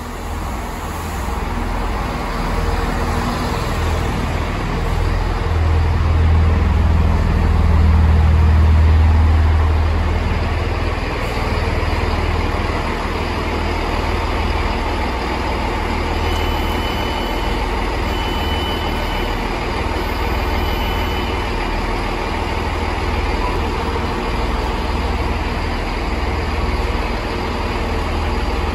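Class 165 diesel multiple unit's underfloor diesel engines rumbling as the train pulls in and stops, loudest about seven to ten seconds in, then running steadily at idle. Three short high beeps come around the middle as the doors are released.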